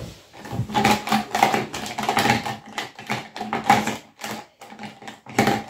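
Markers being mixed together by hand, a rapid, irregular clatter of plastic clicks.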